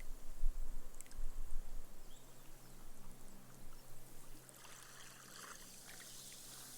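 Small waves lapping on a sandy beach: a low wash in the first couple of seconds, then a hissing swash about halfway through as the water runs up and fizzes into the sand as foam.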